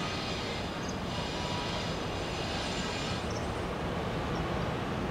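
Steady distant aircraft noise: a low rumble with a high hiss that eases off about three seconds in.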